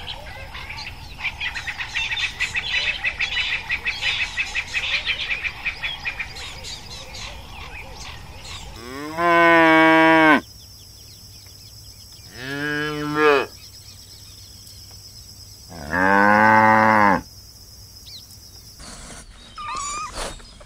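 A cow mooing three times, each a loud drawn-out moo of about a second or more that falls in pitch at the end, with a few seconds between them. Before the moos, a dense, fast, high chirping chorus of insects or birds runs for the first eight seconds or so. Near the end, a kitten starts mewing in short, high calls.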